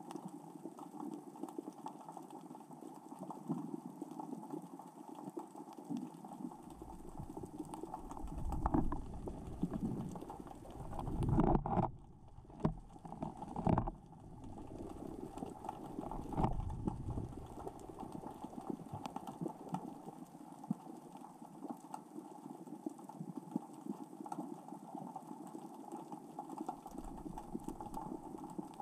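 Small rocks rolling and clattering across the sea floor in the current and tide, heard underwater as a dense, steady crackle of tiny clicks, with a few louder low surges in the middle.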